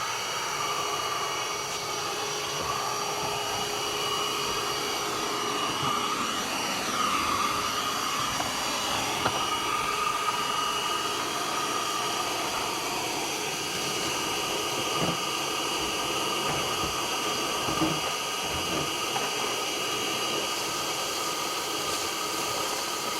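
Shop vac running steadily with a constant whine, sucking up debris, with a few brief knocks as bits are drawn into the hose.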